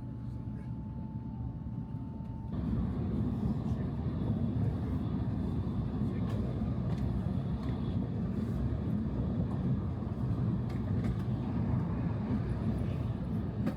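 Steady rumble of a Shinkansen bullet train running, with a faint steady tone in the first two seconds or so; the noise steps up louder about two and a half seconds in and then holds steady.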